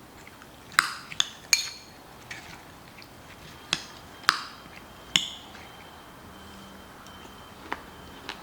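Kitchen utensils clinking against dishes: a series of sharp, ringing clinks at irregular intervals, several close together early on and a few more spread out after.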